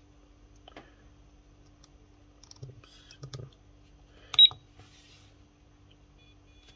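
Soldering station's buzzer giving one short, high beep about four and a half seconds in, as the rotary encoder's push-button confirms a menu choice, with a few faint clicks of the encoder knob and a faint steady hum underneath.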